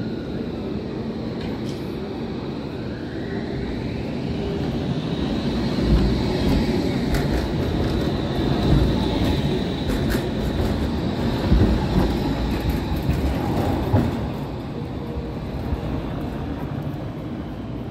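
Crotram TMK 2200 low-floor electric tram passing close by: steel wheels rumbling on the street rails and a rising electric whine that levels off into a steady high tone. A few sharp clacks come as it goes past, and the sound is loudest in the middle.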